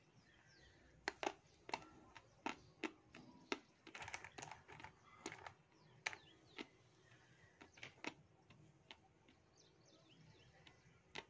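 Dry grey clay crunching as it is bitten and chewed: a string of sharp, crisp crunches from about a second in to about eight seconds, then one more near the end.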